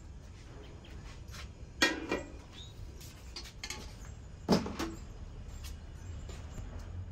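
Metal cookware being set down: two sharp knocks with a short ring, one about two seconds in and one about four and a half seconds in, as an enamel basin holding a steel colander is put down on a table.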